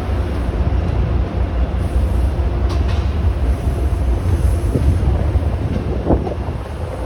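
MBTA HSP46 diesel locomotive running with a deep, steady rumble.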